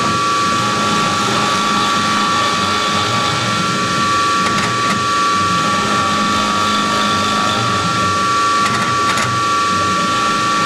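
Novakon NM200 CNC mill's spindle running with a steady high-pitched whine as its end mill carves into a wooden block.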